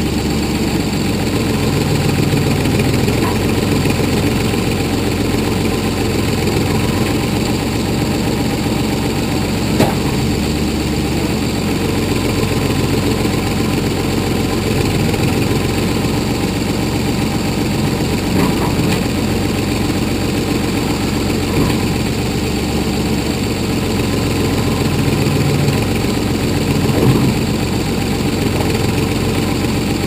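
1981 Ford 555 backhoe engine running steadily while the boom and ditching bucket dig, its note shifting a little as the hydraulics take load. A few faint knocks are heard, about 10, 18 and 27 seconds in.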